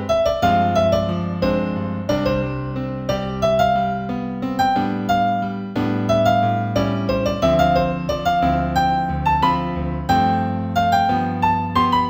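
Gentle new-age piano music in C major: a melody of single notes over sustained low chords.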